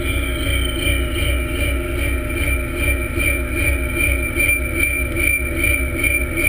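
Drift gillnet boat's engine running steadily under way. Its note wavers in pitch about twice a second over a low rumble, with a steady high whine on top.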